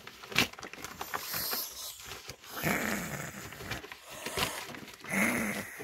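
Domestic white goose hissing in anger, a raspy, throaty "kya" that is likened to a Dracula sound, given three times. It is the goose's threat display.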